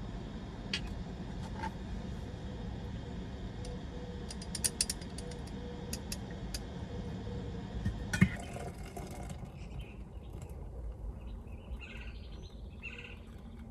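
A steady low rumble with scattered faint clicks, broken by a sharp click about eight seconds in. After it the rumble drops away and birds chirp in short, repeated calls.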